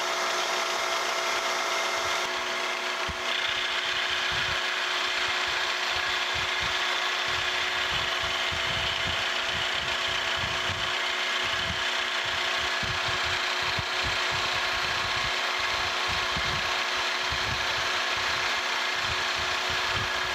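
Vertical milling machine running, its end mill cutting a 50-thousandths-deep pass across a pillow block bearing housing as the table feeds. A steady motor hum under the noise of the cut, which grows brighter about three seconds in.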